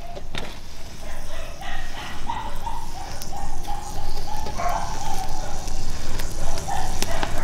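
An animal making a run of short, high calls, a few a second, over a steady low rumble.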